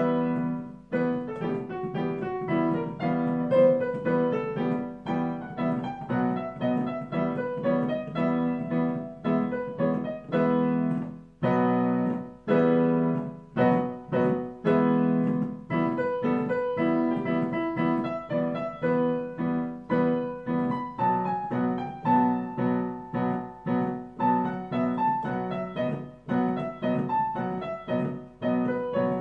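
Solo piano improvisation: a steady repeated chord pattern in the left hand under a right-hand melody, notes struck in an even rhythm, with a brief break about eleven seconds in before the playing resumes.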